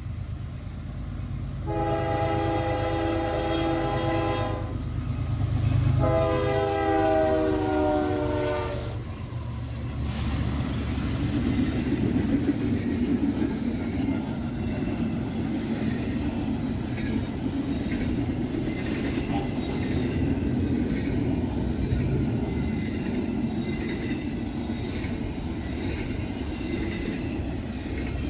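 Diesel freight locomotive's air horn sounding two long blasts, the second falling in pitch as the locomotive passes. Then the freight cars roll by with a steady rumble and wheel noise on the rails.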